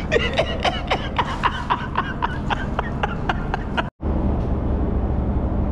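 Fishing reel clicking in a quick run of sharp ticks, about four a second, each with a short ringing note. It cuts off suddenly near the fourth second, leaving a steady low rumble.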